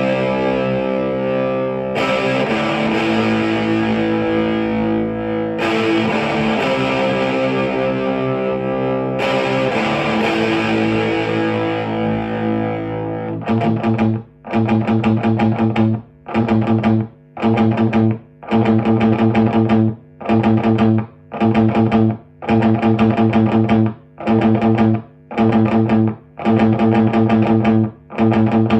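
Electric guitar (1986 Jackson Soloist Custom with a Seymour Duncan pickup) through a Marshall JCM900 4502 combo with Celestion G12T-75 speakers, playing overdriven chords. The first half has long ringing chords that change every few seconds. About halfway in it turns to a choppy rhythm of short stabbed chords with brief breaks between them.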